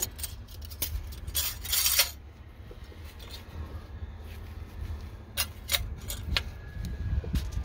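Engine oil dipstick sliding back into its tube: a scraping rasp about two seconds in, then a few light clicks as the handle is pushed home and seated. A low wind rumble on the microphone runs underneath.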